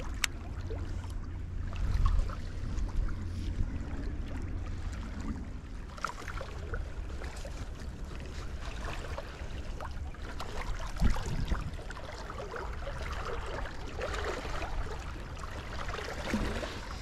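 Wind rumbling steadily on the microphone, with water lapping and trickling against breakwater rocks and a few faint ticks.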